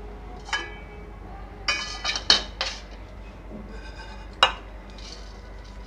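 A non-stick kadhai and a wooden spatula clink and knock against a steel plate as dry-roasted desiccated coconut is scraped out of the pan. The clinks come in a few separate groups, some with a short metallic ring, and the sharpest knock comes about four and a half seconds in.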